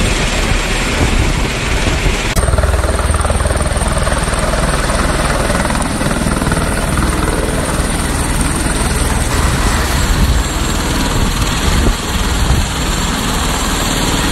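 Helicopter running steadily in flight, a constant drone of rotor and engine noise. The sound changes abruptly about two seconds in and shifts again about nine seconds in.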